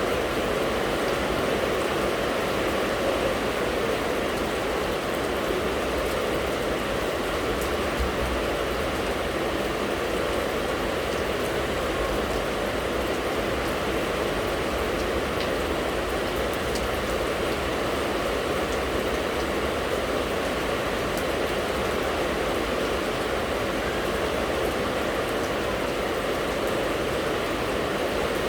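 Steady, unbroken rain noise, even and constant throughout, with a faint scatter of fine drop ticks.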